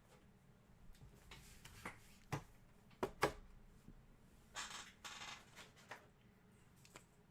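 Trading cards being handled: a series of soft clicks and taps as cards are flipped and set down, loudest about three seconds in, with a brief rustle of cards sliding about halfway through.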